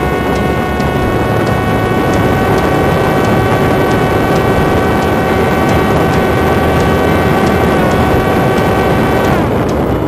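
Parrot Disco fixed-wing drone's electric motor and propeller running at full speed with a steady high whine, over a rush of wind noise. About nine seconds in the whine drops steeply in pitch and winds down.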